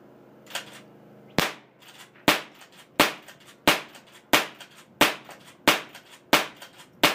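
A .22 lever-action rifle fired rapidly: nine sharp cracks starting about a second and a half in, roughly one every 0.7 s, with fainter clicks between shots as the lever is worked.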